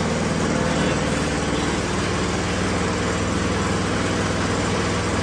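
Yard Machines snowblower's small engine running steadily at an even speed, with no revving. The snowblower is being run to test its freshly rebuilt drive, which has a new friction disc and new cables.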